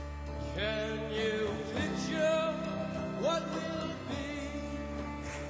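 A song playing: a sung melody over guitar backing.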